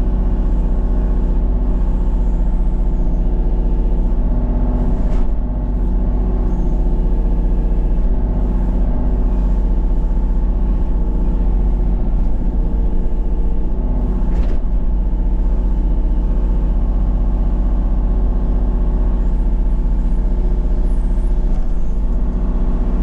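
Kubota KX033-4 mini excavator's three-cylinder diesel engine running steadily under load as the boom and bucket work, heard from the operator's cab, with two brief knocks about a quarter and two-thirds of the way through.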